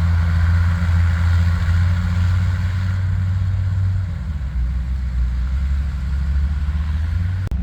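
Bombardier snow bus engine running steadily, its low hum dropping in pitch about four seconds in as the engine eases off.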